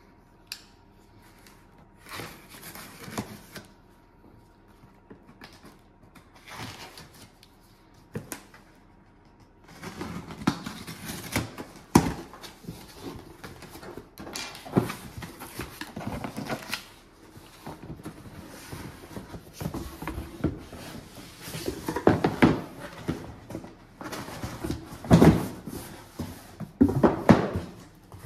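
A knife slitting the packing tape on a cardboard shipping box in a few short strokes, then cardboard flaps pulled open and boxes handled and slid out. Rustling and scraping with a few sharp knocks, busiest from about ten seconds in.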